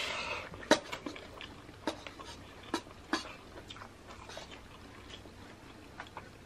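Close-up eating sounds of rice being eaten by hand: chewing and mouth smacks, with a short rustle at the start and scattered sharp clicks that are busiest in the first three seconds.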